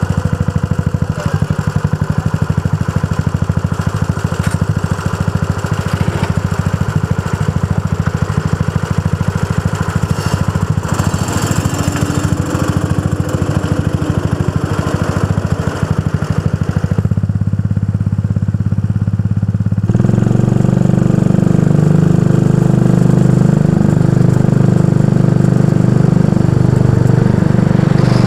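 Go-kart engine right behind the seat idling with a fast, even pulsing, then running louder and steadier from about two-thirds of the way in as the kart gets under way on the track.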